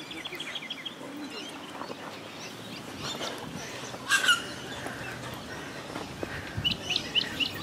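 Birds chirping. There is a quick trill of short high notes at the start, a louder single call about four seconds in, and a run of short chirps near the end, over steady outdoor background noise.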